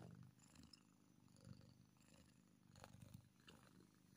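Calico cat purring softly while it is stroked under the chin, a low fine rattle that swells and fades about every second and a half.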